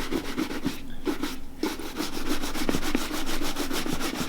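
Quick back-and-forth buffing strokes on a leather boot's upper, about seven or eight a second, with a short pause about a second in. The buffing works freshly applied neutral boot cream evenly into oil-tanned leather.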